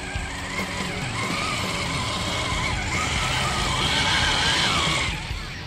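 Radio-controlled scale crawler truck's electric motor and gears whining, the pitch rising and falling with the throttle as it drives through slushy mud. The whine grows louder toward the end and drops away about five seconds in.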